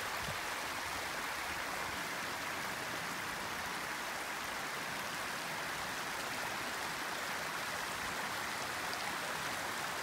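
Running water of a stream rushing steadily, an even hiss with no breaks or changes.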